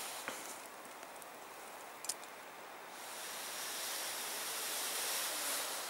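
Long breaths blown into a smoking dry-grass tinder bundle to bring a friction-fire ember to flame, heard as a rushing, breathy hiss that swells for the longest blow in the second half. The dry grass rustles, with two small clicks near the start and about two seconds in.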